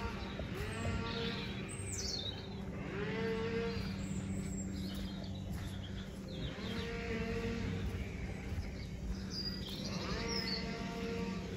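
Drawn-out animal calls, four of them a few seconds apart, each a steady pitched cry that sags slightly at the end, with a few high bird chirps in between. A steady low hum runs underneath.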